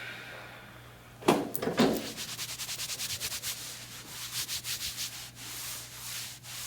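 A spinal adjustment thrust about a second in: a sudden loud crack from the patient's upper back, with a second burst just after. Then quick rubbing strokes, hands and cloth moving over the back and treatment table.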